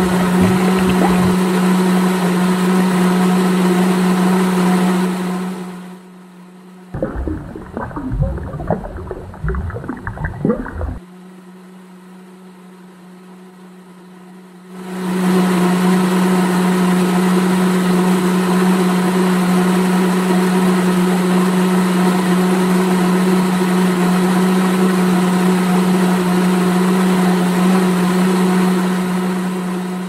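Small electric motor of a miniature model concrete mixer running with a steady hum. The hum fades out about five seconds in, then a few seconds of irregular clattering follow. The hum comes back around fifteen seconds in and fades away near the end.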